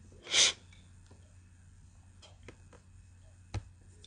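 A short puff of breath near the start, then quiet room tone with a few faint clicks and one sharper click about three and a half seconds in.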